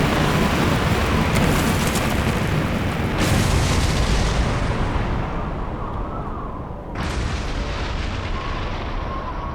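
Large explosion: a loud, deep rumble with a fresh blast about three seconds in and another about seven seconds in, each dying away into rumble.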